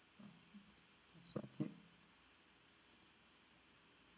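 Two faint computer mouse clicks in quick succession about a second and a half in, over near-silent room hiss.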